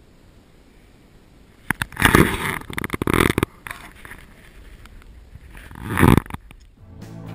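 Loud bursts of rough rubbing and rumbling noise on the camera's microphone as the camera is moved about: one about two seconds in lasting over a second, and a shorter one near six seconds.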